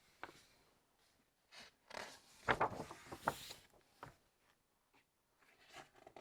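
Paper pages of a book being turned and handled: a rustle with a few soft slaps of paper about two to three seconds in, then small handling noises.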